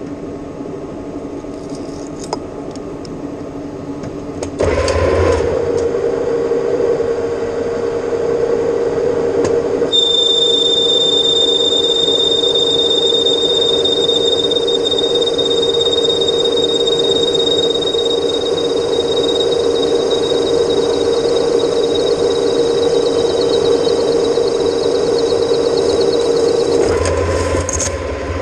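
Metal lathe running, louder with a steady hum from about five seconds in as it turns stainless steel. A steady high-pitched whine joins about ten seconds in and stops near the end.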